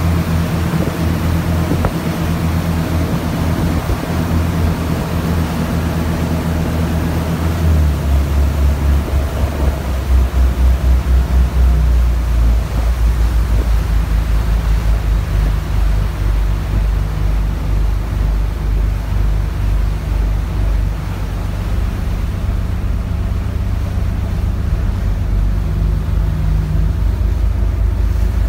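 The engine of the small ferry Funauki-maru running under way: a deep, steady drone with a pulsing beat. About eight seconds in, its note shifts lower and the beat grows stronger, then settles.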